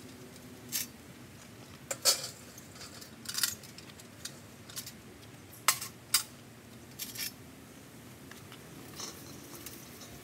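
Metal charcoal chimney starters being handled: a dozen or so separate sharp clanks and clinks of sheet metal knocking against metal, spread irregularly, the loudest about two seconds and six seconds in.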